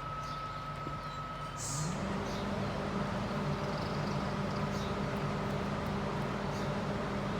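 A steady machine hum that steps up a little in pitch and loudness about two seconds in, with faint high ticks or chirps over it.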